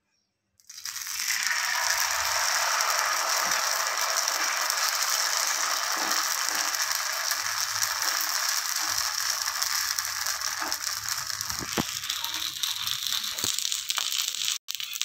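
Pancake batter sizzling in hot oil on a pan, a dense crackling hiss that starts suddenly about a second in as the batter meets the oil and eases a little near the end, with a couple of light clicks.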